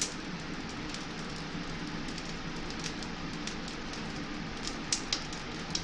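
Electric fan running steadily, blowing air through the tubes of a homemade barrel-stove heat exchanger, with a wood fire crackling and popping inside the stove.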